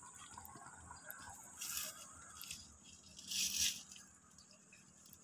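Woven plastic bag and plastic twine being handled: two short crinkly rustles about a second and a half apart, with fainter scratching in between.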